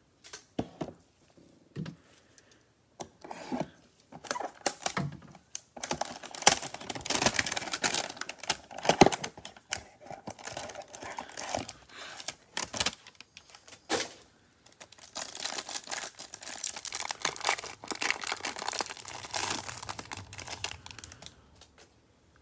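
A cardboard trading-card hanger box being opened by hand: a few taps and scrapes of cardboard at first, then long stretches of the plastic wrapper around the cards crinkling and tearing, with one sharp knock in the middle.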